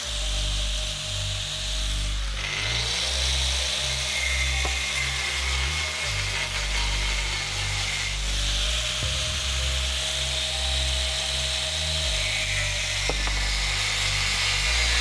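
Power tool cutting steel bar stock, running steadily, with background music that has a repeating bass line underneath.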